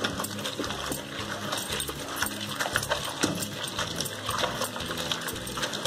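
Cylindrical stone pestle of a traditional stone grinder (aattukal) being turned in its stone basin, scraping and crunching whole shallots and curry leaves. The sound is a dense, irregular run of clicks and knocks.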